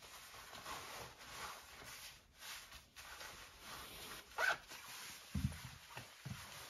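Thin nylon of Supreme full-zip baggy warm-up pants rustling and swishing softly as the wearer handles the back pocket and turns, with a brighter swish about four and a half seconds in. A few low thumps follow after about five seconds.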